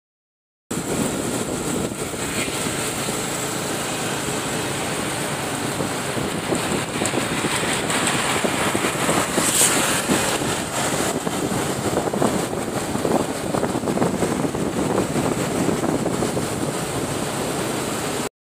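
Steady rush of wind and road noise from riding a motorcycle at speed, with wind buffeting the microphone. The sound drops out to silence briefly just after the start and again just before the end.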